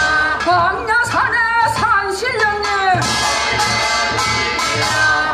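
Korean folk labour song of the charcoal workers: a voice sings a wavering, sliding phrase over a steady drumbeat of about two beats a second.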